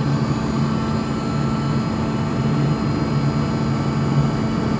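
Atlas Copco GA 11 FF 11 kW direct-drive screw air compressor running loaded as it builds pressure in an air tank: a steady machine hum with a low drone.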